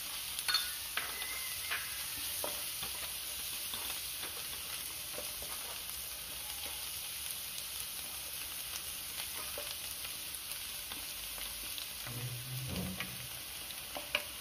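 Chopped onions with ginger, garlic, green chilli and curry leaves sizzling in coconut oil in a pan, stirred with a spatula that clicks now and then against the pan. The onions are about three-quarters browned.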